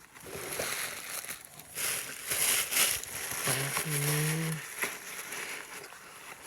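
Crinkling and rustling of packaging as small items are handled and put away, irregular and strongest in a run of crackles about two to three seconds in.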